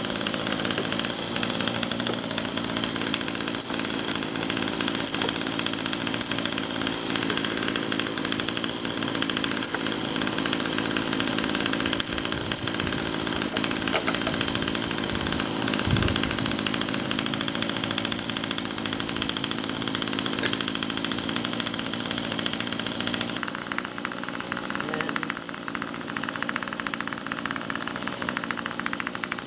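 Honey bee swarm buzzing: a steady, dense drone of many bees in flight, which thins somewhat near the end. A single low thump about halfway through.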